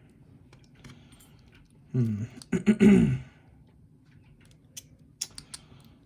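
A man clearing his throat, a gruff voiced rasp in two pushes about two seconds in, followed near the end by a few short, sharp small clicks.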